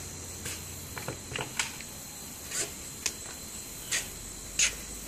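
Irregular light taps and clicks, roughly one a second, the loudest about four and a half seconds in, over a faint steady hum.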